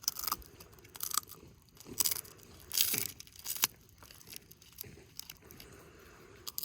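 A dog chewing a hard, crunchy treat, with irregular sharp crunches.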